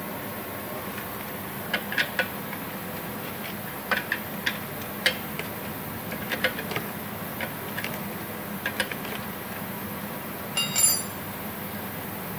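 Scattered light metallic clicks and taps of a hand tool working at the small oil-drain bolt on an air compressor's aluminium crankcase, with a short ringing clink near the end.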